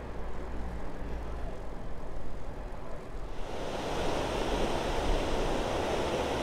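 Low wind rumble on the microphone while riding, then from about three seconds in the steady rushing of a shallow, stony river running over small rapids.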